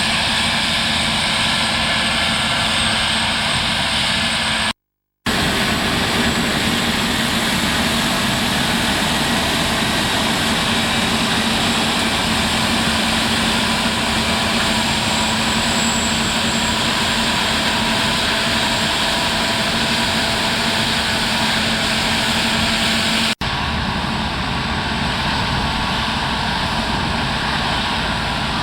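Claas Lexion 770 TerraTrac combine harvester running steadily as it harvests, a continuous engine drone with a steady hum. The sound drops out for about half a second near five seconds in.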